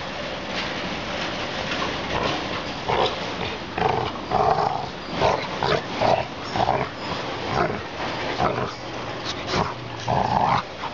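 Two Labrador retrievers play-fighting, growling at each other in short, irregular bursts.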